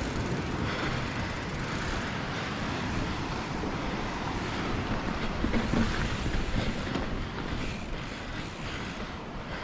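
Wind blowing across the microphone: a steady, even rush of noise, heaviest and most ragged at the low end.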